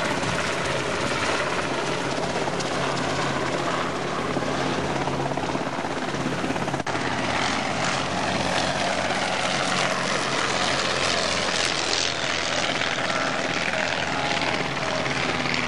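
Bailey-Moyes Dragonfly ultralight tug's engine and propeller running steadily on the ground, an even, unbroken drone.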